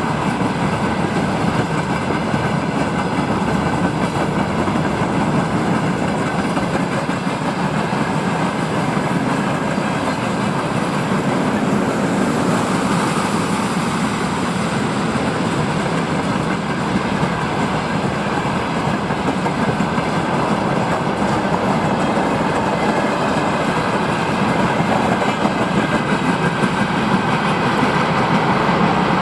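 Freight train wagons, open gondolas and a tank car, rolling past on the rails: a loud, steady noise of wheels on track.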